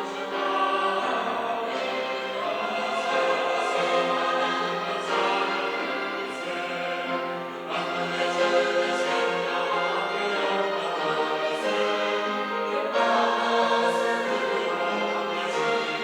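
Church choir singing an anthem in several parts, with accompaniment, in held chords that move together.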